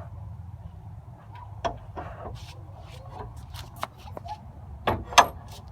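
A door being tried and rattled: scattered sharp clicks and knocks, with two louder knocks near the end, over a low steady rumble.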